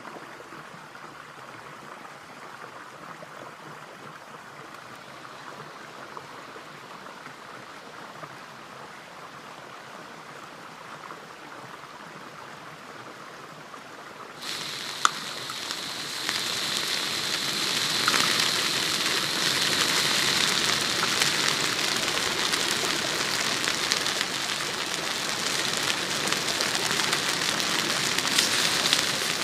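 Small forest stream flowing steadily. About halfway through there is a sharp click, and then a louder crackling hiss takes over: meat sizzling in a pan on a portable gas canister stove.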